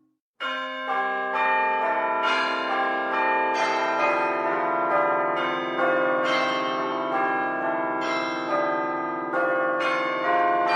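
A peal of church bells ringing, several bells struck one after another about twice a second, their ringing tones overlapping. It starts after a short silence about half a second in.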